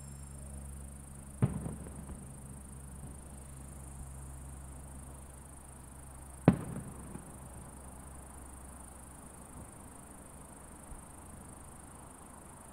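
Two distant fireworks shells bursting about five seconds apart, each a sharp boom with an echoing tail; the second is louder.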